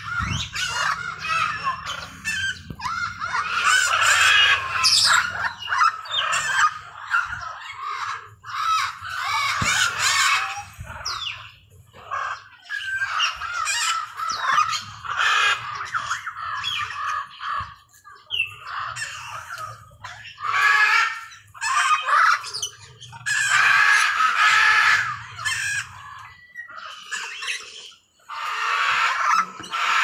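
Macaws squawking: loud, harsh, raspy calls come in repeated bursts of one to several seconds, broken by short gaps.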